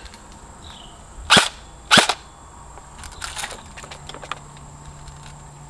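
Lancer Tactical M4 airsoft electric rifle firing two single shots about half a second apart, followed by a few faint clicks.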